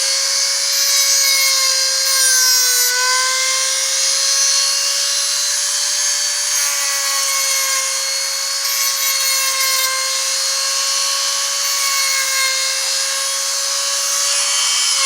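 A small high-speed power grinder running steadily, grinding a nickel lock pick made from a safety pin: a constant whine with a hissing grind over it. The motor begins to wind down right at the end.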